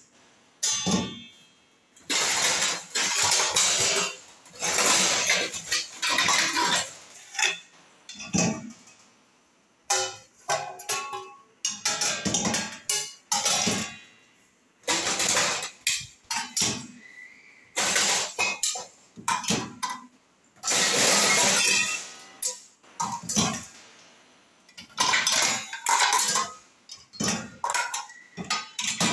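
Stainless steel vessels, plates and cutlery clattering and ringing as they are set into the wire racks of a dishwasher, in a string of separate clanks with short pauses between them.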